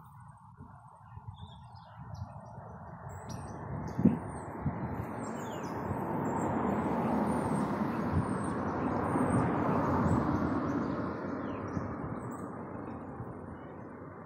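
Small birds chirping in short high notes, over a broad rushing noise that swells for several seconds and then fades, with a single knock about four seconds in.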